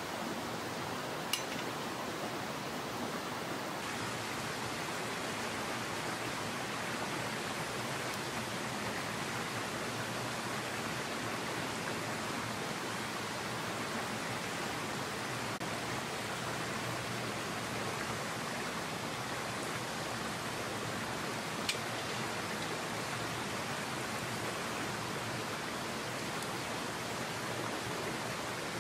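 Steady rushing of a headwater mountain stream, with two sharp pops from the wood fire in a small stove, one about a second in and one about two-thirds of the way through.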